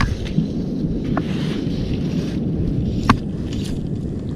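Wind buffeting a body-worn camera's microphone as a steady low rumble, with a few short sharp clicks, the clearest about three seconds in.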